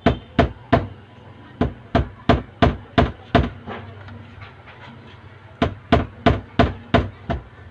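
Hammer blows: runs of quick, sharp strikes about three a second, broken by a pause of about two seconds after the middle.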